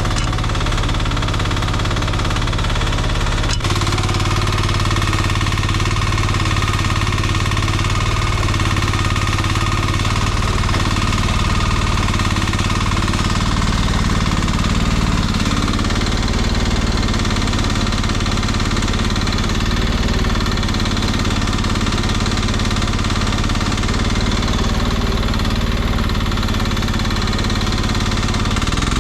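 Engine of a Nuoman E10 one-ton mini excavator running steadily while it works. Its low note steps up slightly about three and a half seconds in.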